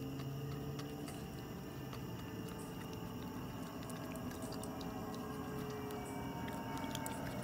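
Raccoons eating from a metal bowl, making scattered faint clicks and wet chewing sounds over a steady low hum.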